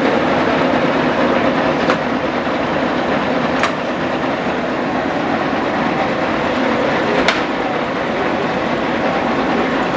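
Lodge & Shipley No. 20 engine lathe running under power, its headstock gearing and drive making a loud, steady mechanical noise. Three sharp clicks stand out: about 2 seconds in, about 3.5 seconds in, and about 7 seconds in.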